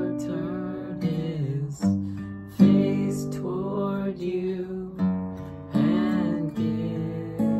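Acoustic guitar strummed in slow chords while a woman and a man sing a worship song together.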